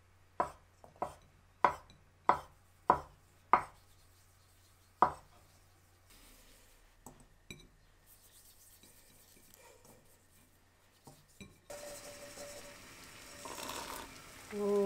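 Kitchen knife chopping a rope of tapioca dough into small pieces on a wooden cutting board: about eight sharp chops, roughly two a second, over the first five seconds. Near the end, a pot of boiling water hisses and splashes as the pearls are tipped in to cook.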